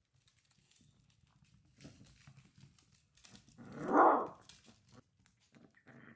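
A miniature dachshund puppy gives one loud vocal sound, about a second long, about four seconds in. Faint scuffling and light claw taps on the wooden floor come and go around it.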